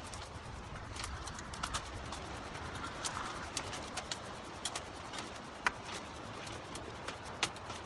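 Dry bamboo stems and twigs clicking, knocking and snapping under a person climbing up a bamboo clump: irregular sharp clicks over a rustle of brush, with the loudest knocks near the end.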